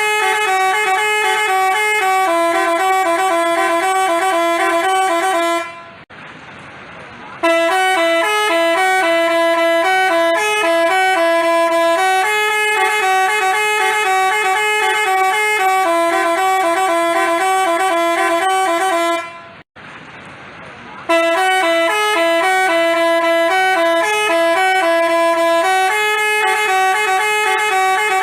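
Basuri telolet bus horn, a multi-tone horn, playing a tune in quick stepped notes. It breaks off twice, about six seconds in and again near twenty seconds, for about a second and a half each time before the tune starts over.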